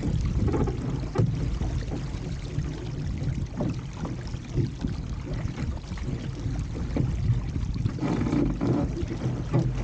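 Wind buffeting the microphone over water rushing and slapping against an RS300 sailing dinghy's hull under way, with scattered short knocks.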